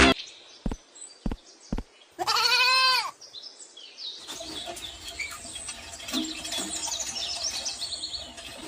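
A goat bleating once, a call of about a second that rises and falls in pitch, after three short soft knocks. Faint music comes in about four seconds in.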